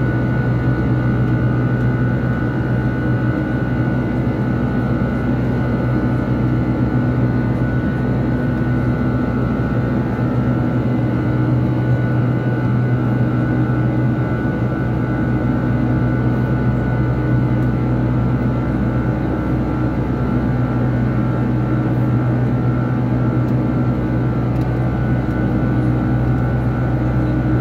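Boeing 747 cabin noise during climb-out: a steady, loud drone of the jet engines and rushing air, with a low hum and a few higher humming tones held steady throughout.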